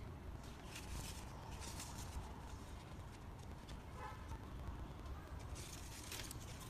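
Handheld POS terminal's built-in thermal receipt printer feeding out a receipt in short spurts of whirring, with a brief tone about four seconds in.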